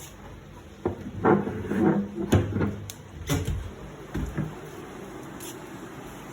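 A series of knocks and thumps, several close together about a second in and fading out by the middle, over a steady low background hum.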